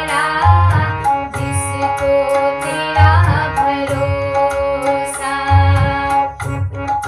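Devotional song music: a tabla rhythm under sustained melodic instruments, with gliding melodic phrases near the start and about three seconds in.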